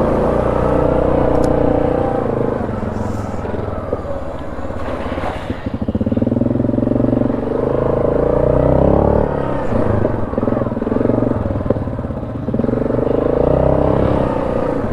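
ATV engine running as it is ridden, its note rising and falling with the throttle, easing off twice along the way.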